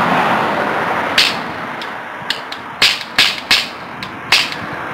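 Toy cap pistol firing gunpowder caps: a string of sharp cracks, about eight in three seconds, starting about a second in. The cracks are uneven in strength, with a few weak pops between the loud ones.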